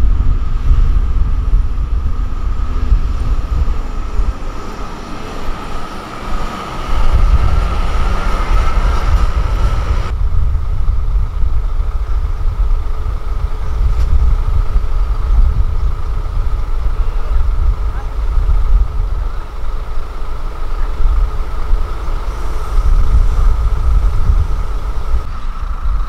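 Heavy diesel dump trucks running, a deep steady rumble; the sound changes abruptly about ten seconds in.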